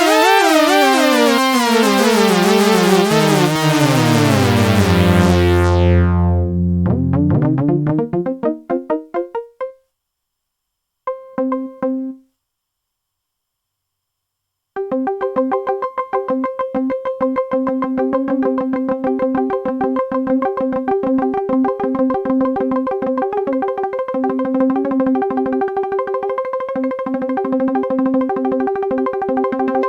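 Synthesizer sounds: a dense, wobbling synth tone sweeping down in pitch and dying away about ten seconds in, then a short blip. After a few seconds of silence comes a fast repeating sequence of a few synth notes.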